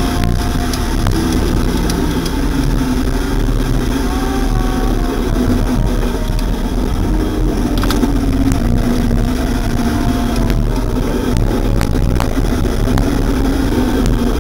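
Motorcycle engine running while riding, its note rising and falling with the throttle, under steady wind rush on the bike-mounted camera's microphone.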